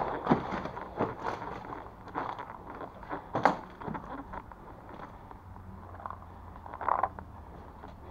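Footsteps crunching and scuffing over rubble and debris on the floor, in irregular steps with scattered knocks; the sharpest knock comes about three and a half seconds in.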